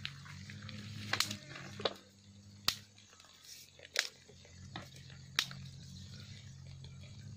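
Dry twigs snapped by hand, about six sharp cracks spread through the first five seconds, over a steady low hum.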